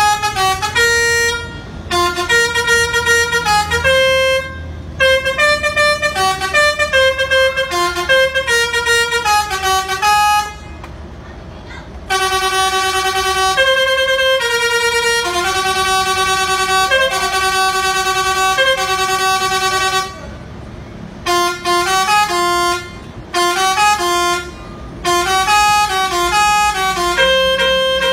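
Musical 'basuri' horn on a Mitsubishi Fuso truck playing a tune in phrases of quick stepping notes, with short breaks and a longer run of held notes in the middle. A low engine rumble runs underneath.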